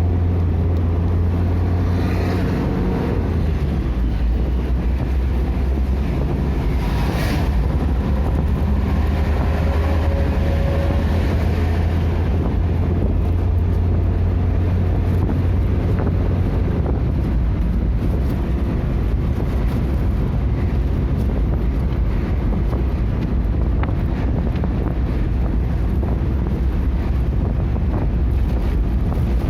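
A vehicle drives along steadily with a constant low engine and road drone. Faint shifts in engine pitch come and go over the steady rumble.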